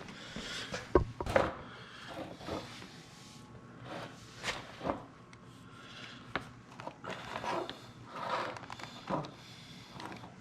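A dull knife cutting and scraping through a plastic chin spoiler to make relief slots, in irregular short scrapes with scattered clicks and knocks.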